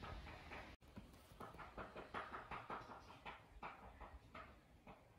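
Faint quick series of short animal sounds, about five a second, in the background for a few seconds.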